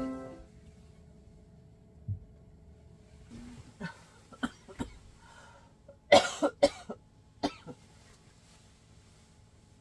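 A person coughing in a small room: a few short coughs, then a louder run of three or four coughs about six seconds in and one more soon after. A lingering cough of someone recovering from COVID-19.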